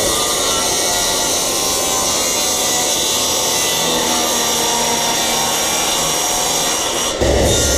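A power tool working on material for a heater enclosure box, running steadily. About seven seconds in the sound changes abruptly, with a short low-pitched burst.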